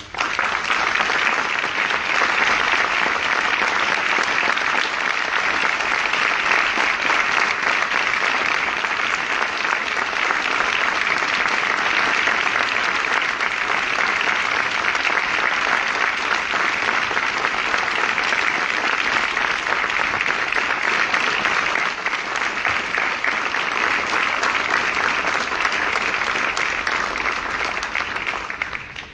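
Crowd applauding steadily, starting all at once and dying away at the very end.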